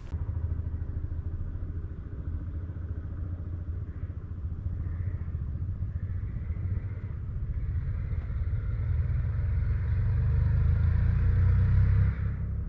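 A motor vehicle's engine running as a low rumble that grows gradually louder as it approaches.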